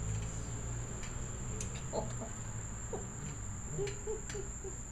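A steady high-pitched insect drone, with a baby's short grunting coos about two, three and four seconds in.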